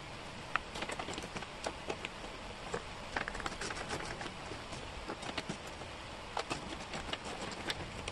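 Small wooden jigsaw puzzle pieces clicking and tapping as they are picked up, shuffled and set down on the puzzle board: a quick, irregular patter of light clicks over a low hiss.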